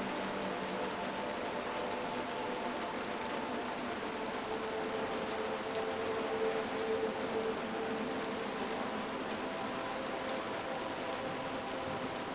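Steady rain, with scattered sharp drop ticks, over faint steady low tones.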